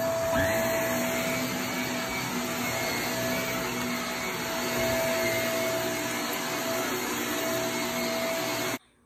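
Upright vacuum cleaner running over carpet: a steady rushing hum with a held whine. It cuts off suddenly near the end.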